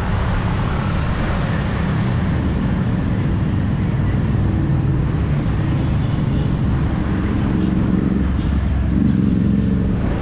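Steady city road traffic with motor vehicles running close by, a continuous engine rumble. An engine hum grows stronger near the end.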